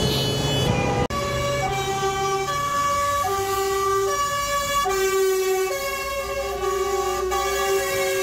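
Fire engine sirens sounding, jumping back and forth between high and low notes, with more than one siren overlapping. There is a sudden break about a second in.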